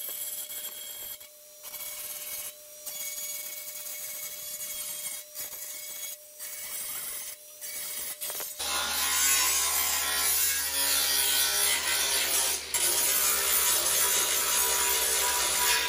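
Angle grinder with a thin cut-off disc cutting through the rusted sheet-steel rocker panel of a 1969 Camaro. The cut breaks off briefly several times in the first half, then from about halfway through the grinding is louder and fuller.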